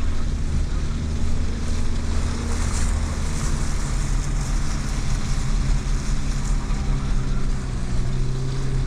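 Fiat Panda 4x4 heard from inside the cabin, its engine running steadily as it drives across a wet, rutted field. Tyre noise hisses louder for a few seconds in the middle.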